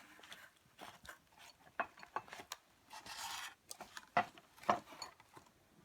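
Irregular handling sounds: small taps and clicks with a longer scraping rub about three seconds in.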